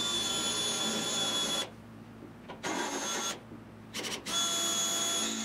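Cordless drill boring into the steel lip of a car roof panel, its motor whining in three bursts; the last is briefly interrupted.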